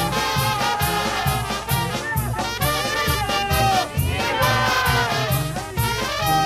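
Brass-band music with trumpets and trombones over a steady beat.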